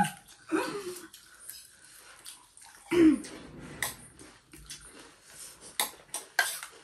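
People eating panipuri and chatpate: scattered short crunches and clicks of chewing and dishes, with a brief vocal sound falling in pitch about three seconds in.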